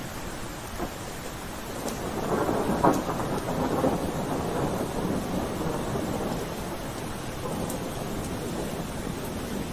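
Steady rain with a roll of thunder that swells about two seconds in, peaks a second later, and dies away slowly over the next few seconds.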